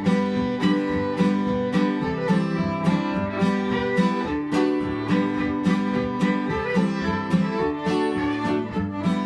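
Fiddle and acoustic guitar playing a tune together: the fiddle carries the melody over a steady strummed guitar rhythm.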